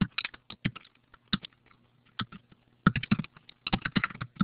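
Typing on a computer keyboard: irregular runs of keystrokes with a pause of about a second and a half midway, over a faint steady low hum.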